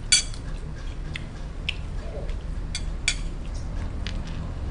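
Close-up eating sounds: a mouthful of rice and squid roe chewed, with a handful of sharp separate clicks of spoon and mouth. The first click, right at the start, is the loudest.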